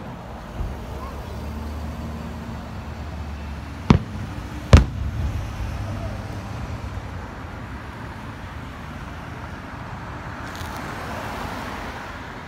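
Two sharp aerial firework shell bursts about four seconds in, under a second apart, the second the louder. Beneath them, a passing pickup truck's engine hums low over the first few seconds, and another car passes close near the end.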